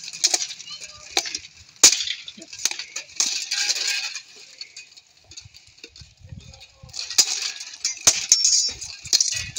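Steel plate armour clanking and rattling with sharp metallic clangs of weapons striking in armoured sparring: a string of single clanks and busier rattling, quieter for a moment about halfway through.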